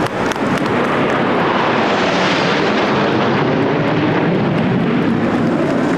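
Military aircraft flying over low, a broad engine rush that swells to a peak about two seconds in and then eases as it passes.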